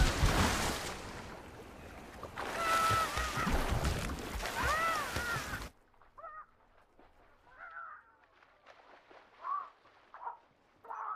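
Water splashing and sloshing as an animal-like creature thrashes in it, with high arching squeals. About six seconds in the splashing cuts off suddenly, leaving only faint, scattered squeaks and gurgles: the creature drowning.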